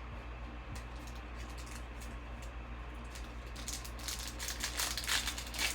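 Baseball trading cards handled and flipped through: light rustles and clicks of card stock, getting busier in the last couple of seconds, over a steady low hum.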